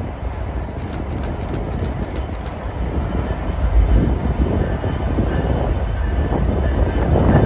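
Lone EMD SD70ACu diesel locomotive hauling a grain train, its engine making a deep, steady rumble that grows louder as it approaches and draws level.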